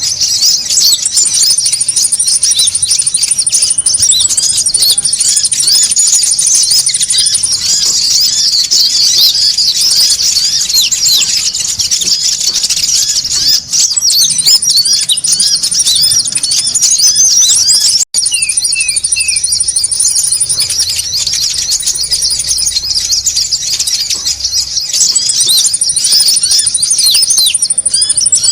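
Dense, busy twittering of a flock of konin, small songbirds kept as a lure call, with fast high chirps overlapping throughout. A thin, very high trill comes and goes in stretches of a few seconds. The sound cuts out for an instant about two-thirds of the way through.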